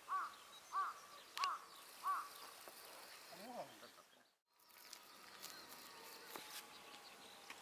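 A crow cawing four times in a steady run, about one caw every two-thirds of a second, then a single lower call. The sound cuts off abruptly about four and a half seconds in, and after that there is only faint outdoor background with a faint, slowly falling whistle.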